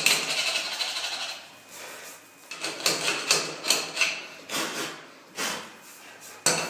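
Adjustable wrench turning a bath mixer's chrome wall connector on the tiled wall, setting the pair about 15 centimetres apart: a run of metal-on-metal scraping and clicking, a short lull, then a string of separate sharp clicks.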